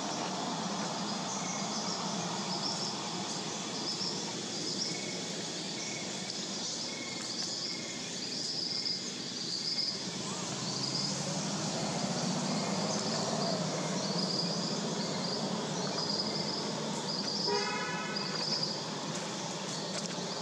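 Outdoor ambience: a high chirping call repeats about once a second over a low steady rumble. Near the end there is one short horn-like toot.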